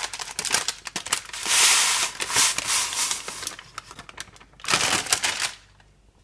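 Baking paper crinkling as it is lifted and folded, with crisp oven-dried grated turmeric rattling and sliding off it into a steel mixer-grinder jar. A busy run of small clicks and rustles, with two louder rushes, that stops shortly before the end.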